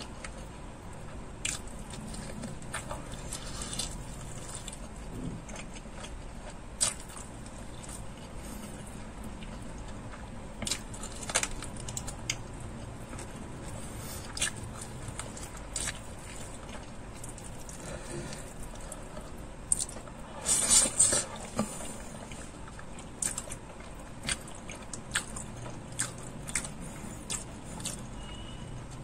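Close-miked chewing and biting of a fried chicken leg piece, with short mouth clicks at irregular intervals and a louder run of them about twenty seconds in.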